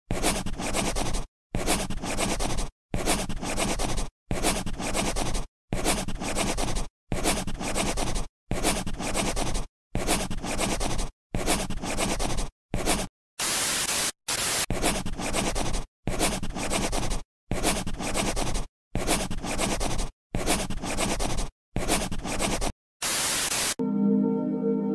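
A scratchy, hissing noise that repeats in chunks of about a second and a half, each broken off by a brief dead gap, with two louder bursts of hiss midway and near the end. Right at the end, soft ambient music with a ringing singing-bowl tone comes in.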